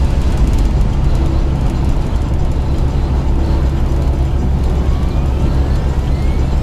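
Steady low rumble of engine and tyre noise from a truck cruising at highway speed, heard from inside the cab. A faint rising whine comes in near the end.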